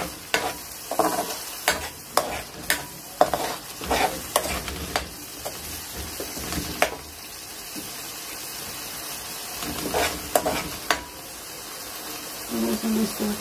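Metal ladle stirring and scraping a thick masala gravy in an aluminium karahi, with sharp knocks of the ladle against the pan over a steady sizzle of frying. The knocks come thick in the first few seconds, die away in the middle, and return briefly about ten seconds in.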